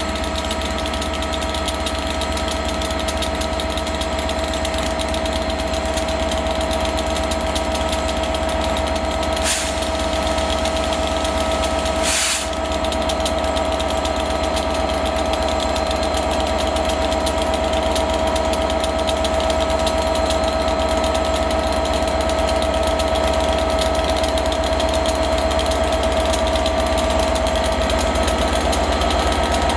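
Class 67 diesel locomotive's EMD 12-710 two-stroke V12 engine ticking over steadily, a low rumble with a high steady hum on top. Two short sharp clicks at about 10 and 12 seconds in, and the engine grows a little louder near the end.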